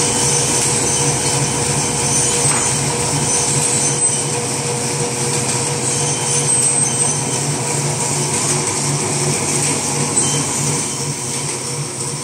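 Automatic napkin folding and packaging machine running: steady mechanical clatter with an even, rhythmic low pulse and a constant hum.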